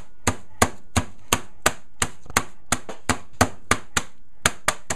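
A rolling pin beating a food bag of digestive biscuits flat against a chopping board, crushing them to crumbs: sharp, even smacks about three a second.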